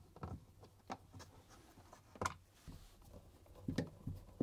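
Screwdriver turning screws out of a fridge's plastic evaporator cover: scratchy rubbing of the bit in the screw heads, with a few sharp clicks.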